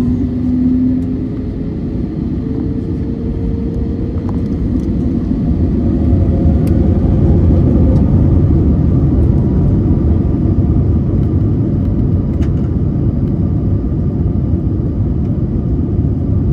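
Airbus A321neo's CFM LEAP-1A engines spooling up for the takeoff roll, heard inside the cabin: a deep rumble with a faint rising whine that grows louder over the first several seconds, then holds steady at takeoff thrust.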